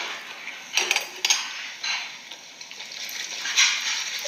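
Wooden chopsticks working at a plate of wet kimchi: a few short clicks and scrapes with moist rustling as a piece is lifted.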